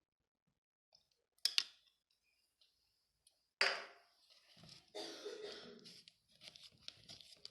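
Milk being mixed into a stiff cake batter in a bowl: a couple of spoon clicks, then irregular stirring and scraping strokes.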